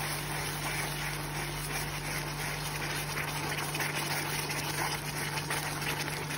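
Hot caramel of melted sugar and butter sizzling and bubbling in a pan as cold cream is poured in and stirred with a wooden spoon: a dense, steady crackle, over a steady low hum.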